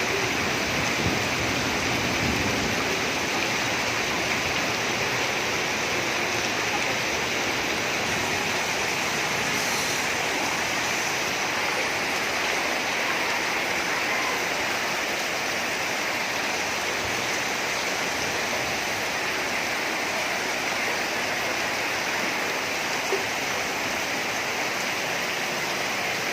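Steady rushing of water from heavy rain and floodwater, running evenly without a break.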